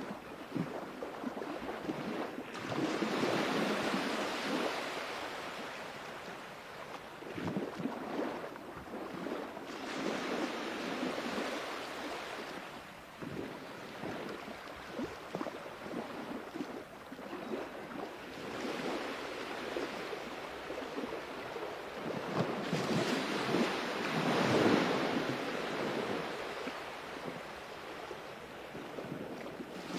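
Sea waves washing in, rising and falling in several slow swells, with the loudest swell toward the end.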